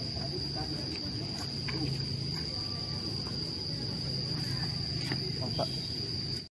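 An insect trilling in one steady, unbroken high-pitched note over a low outdoor background rumble, cutting off suddenly near the end.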